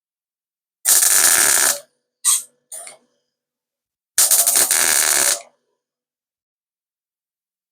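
Welder laying short stitch welds on a thin sheet-metal door skin: two crackling bursts of about a second each, with two brief blips between them. The welds are kept short to limit heat and warping of the thin panel.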